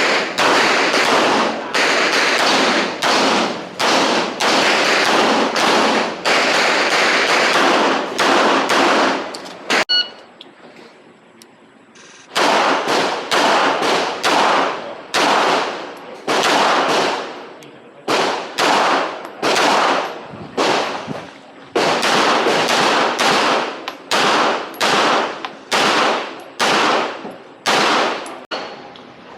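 Handgun shots fired in rapid strings on an IPSC stage, each shot followed by a ringing echo tail. The firing breaks off for about two seconds near the middle, then resumes at the same pace.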